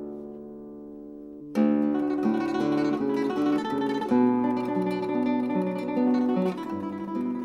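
Background music on acoustic guitar: a chord rings and fades, then about one and a half seconds in a new phrase of plucked notes begins and carries on.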